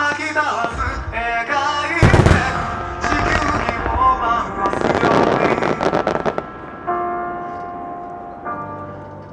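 Fireworks bursting over music: a loud bang about two seconds in, then dense crackling for about four seconds, ending in held musical chords that fade.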